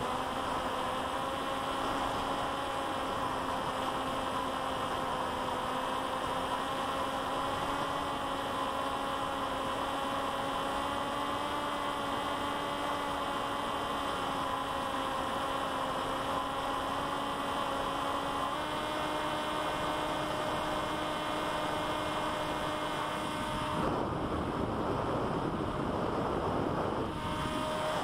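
Electric motor and propeller of a C1 Chaser 1200 mm flying wing in flight, close to the onboard camera: a steady humming drone with a whine of several tones. About two-thirds through, the pitch steps up a little. A few seconds before the end the hum gives way to a rush of air.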